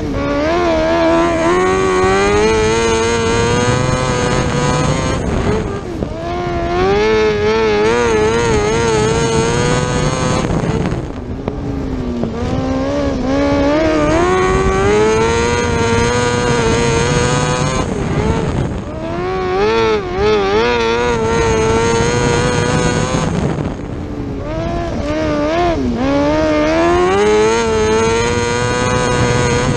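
600cc micro sprint car's motorcycle-derived engine at racing speed, heard from on board. The revs climb along each straight and dip at each turn, over and over, about every six seconds.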